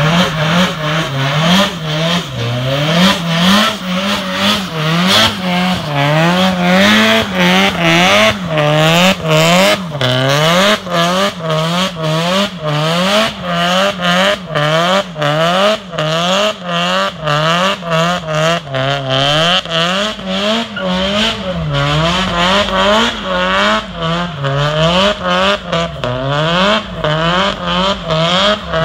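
Nissan 200SX (S15 Silvia) doing donuts and drifting: its engine revs rise and fall over and over, about once or twice a second, as the throttle is worked, with the tyres screeching on the tarmac throughout.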